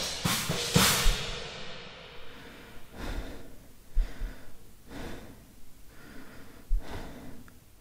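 Drum kit strokes and cymbal wash ringing out and fading over the first two seconds. Then slow, heavy breaths about once a second, with a few scattered low thumps.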